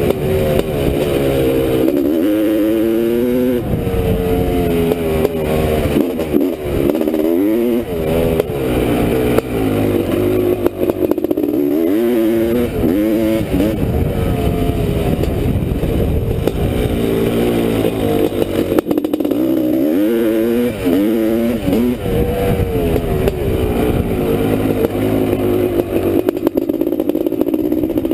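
A 1985 Honda CR500's two-stroke single-cylinder engine being ridden hard, heard from on the bike, its pitch rising and falling again and again as the throttle is opened and closed.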